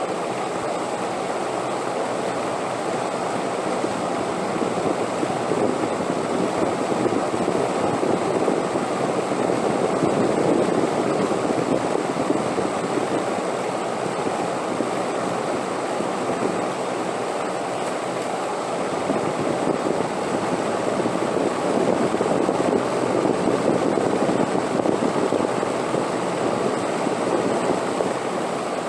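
Steady wind blowing, a dense rushing that swells slowly, with stronger stretches about ten seconds in and again around twenty-four seconds.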